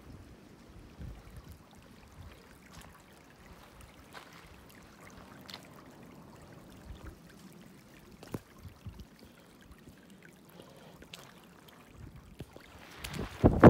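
Sneakered feet wading through a shallow, gravel-bottomed creek: running water with scattered splashes and stones clicking underfoot, ending in louder splashing near the end.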